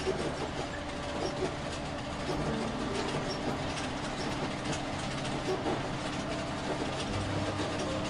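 Steady rumbling of a moving vehicle, a sound effect for a bus ride through the snow.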